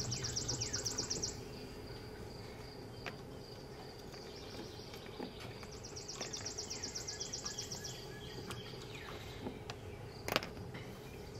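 Outdoor ambience: a high, rapid trill of about ten pulses a second sounds twice, at the start and again about six seconds in, over faint chirps, with one sharp click near the end.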